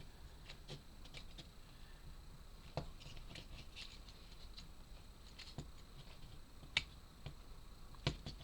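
Wooden 3D puzzle pieces being handled and fitted together: scattered light clicks and taps, with a few sharper clicks among them.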